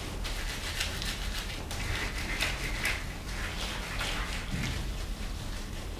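Gloved hands rubbed together for a hand-hygiene rub: a quick series of soft rubbing strokes, two or three a second.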